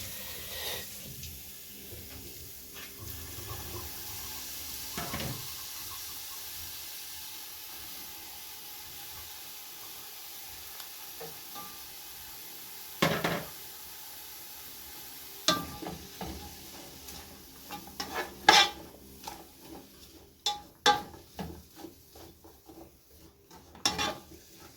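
Food sizzling as it fries in oil in a pan, a steady hiss that fades in the second half. A metal utensil knocks and scrapes against the pan while the food is stirred, with a few sharp knocks, then a run of them near the end.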